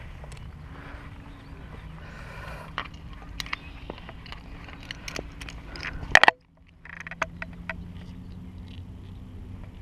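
Stones clicking and knocking underfoot and gear being handled on a rocky shoreline, with one loud knock about six seconds in, over a steady low hum.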